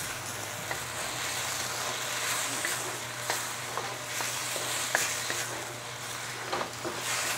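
Rice cake slices and bok choy sizzling in a hot wok as they are stir-fried, with the utensil scraping and knocking against the pan now and then.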